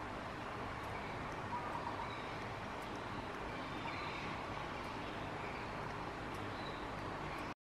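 Steady background ambience with a low hum and hiss, a few faint high chirps and small clicks over it; it cuts off suddenly near the end.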